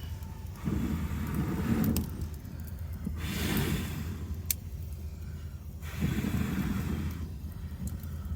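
Wood fire, newly built up with extra pieces, crackling with a few sharp pops. Rushing swells about every three seconds rise and fall over a steady low hum.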